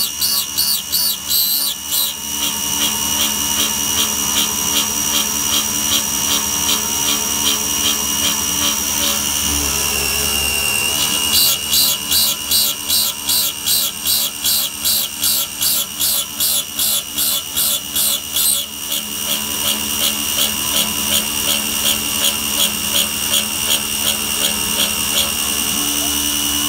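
CNC router spindle whining steadily as an end mill cuts a slot on a trochoidal toolpath, the cutting noise swelling and fading about twice a second as the cutter loops into and out of the material.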